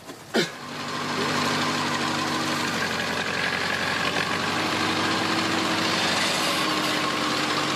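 An engine running steadily at an even speed, rising to a steady level over the first second.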